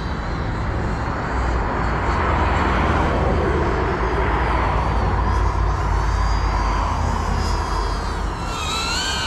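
GEPRC Cinelog 35 ducted cinewhoop drone in flight: its motors and propellers whine, the pitch rising and falling as the throttle changes, over a steady low rumble. Near the end the whine climbs and grows louder.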